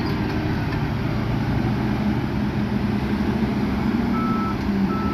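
Heavy diesel earthmoving machinery running steadily with a low rumble, and a reversing alarm beeping twice near the end.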